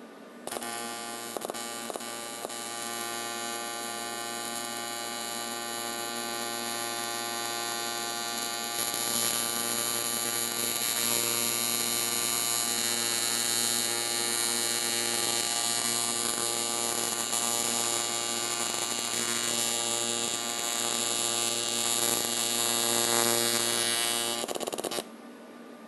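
AC TIG welding arc on a preheated cast aluminum intake manifold: a steady electric buzz that strikes up about half a second in with a few crackles over the first couple of seconds, grows louder about nine seconds in, and cuts off suddenly near the end as the arc is broken.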